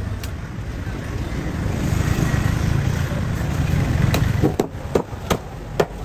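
Low rumble of a passing vehicle that swells over the first few seconds and then fades. A heavy knife strikes a wooden chopping block through a parrotfish, one sharp knock near the start and about four more in the second half.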